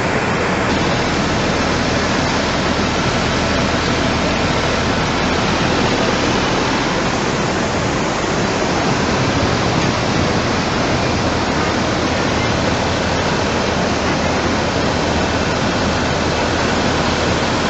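Muddy flash flood of water and debris rushing down a valley: a loud, steady rush of water with no let-up.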